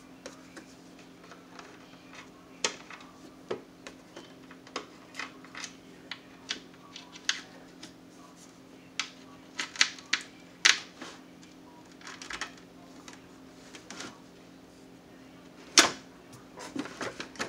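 Irregular small clicks and taps of a screwdriver and fingers working screws into a radio cabinet as the chassis is fitted, with one sharper knock near the end. A faint steady hum runs underneath.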